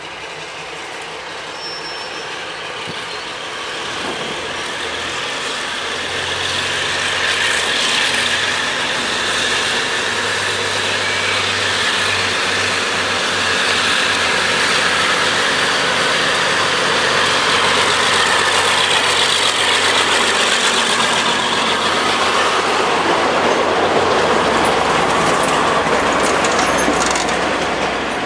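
Class 52 'Western' diesel-hydraulic locomotive, with its twin Maybach engines, working under power as it pulls out with a train, putting up exhaust smoke. The engine note grows louder over the first several seconds as it approaches and passes. Near the end the coaches roll by.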